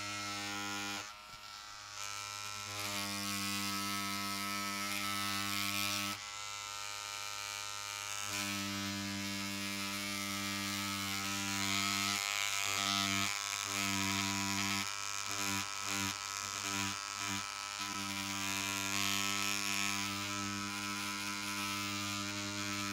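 A cartridge tattoo machine fitted with a small beveler needle cartridge runs at about 8 volts with a steady electric buzz as its tip works the leather. Its tone wavers, with several brief dips around the middle.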